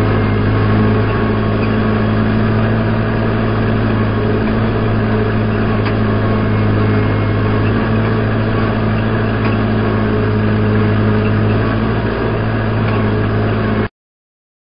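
Tractor engine running at a steady speed while pulling a hay rake through the field. The sound cuts off abruptly near the end.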